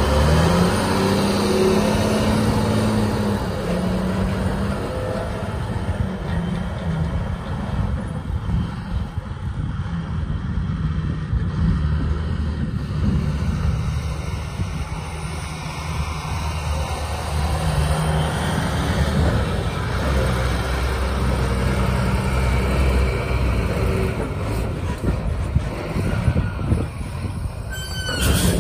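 Volvo A25D articulated dump truck's diesel engine running as the truck drives, engine speed rising and falling several times. A brief sharp noise comes near the end.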